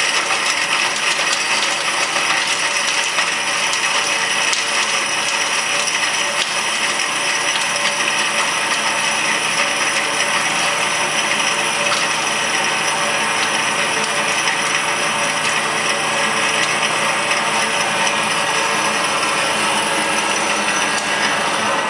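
Industrial mixer grinder running steadily, its motor and grinding jar giving a continuous dense rattle.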